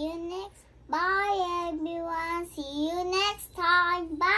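A young girl singing in a high voice, a run of held notes in four or five short phrases, each rising a little at its end.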